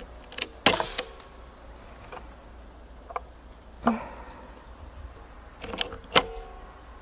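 Daisy Powerline 5501 CO2 blowback BB pistol firing from a metal shooting rest: a sharp snap with the slide's clack and a metallic ring just under a second in, then a few lighter mechanical clicks. Near the end the slide is racked by hand, two clacks in quick succession, cocking the pistol because the blowback does not always cock it for the next shot.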